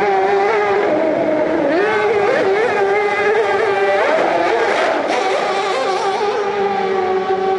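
Mercury 50 hp outboard engine of a plywood hydroplane racing boat running at high revs over whitewater, its pitch briefly dipping and climbing again a few times, with the rush of the rapids underneath.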